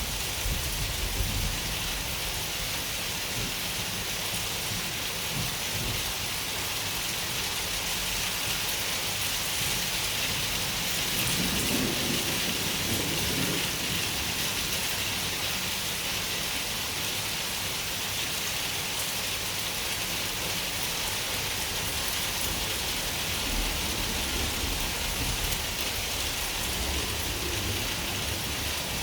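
Steady rain hissing, with low rolling thunder rumbling underneath; the thunder swells most about eleven to fourteen seconds in and comes back faintly near the end.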